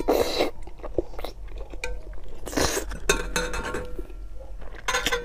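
A person eating hot and sour noodles: several loud slurps of noodles and chewing, with chopsticks clinking against a metal bowl.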